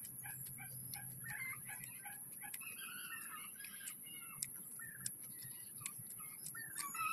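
Birds chirping and calling in short, repeated notes, with a few faint sharp clicks about halfway through.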